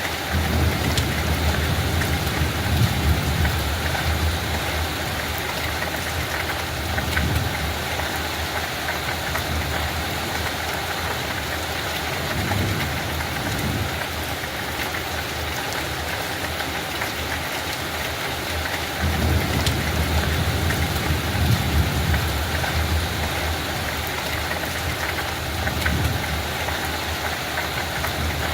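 Steady light rain, an even hiss of drops falling. Several times, a low rumble swells under it for a few seconds and fades.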